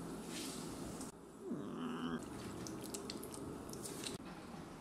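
Liquid wrung from grated potato and onion in a cloth trickling and dripping into a stainless steel bowl, with scattered small drips and clicks. A brief pitched sound that falls in pitch comes about a second and a half in.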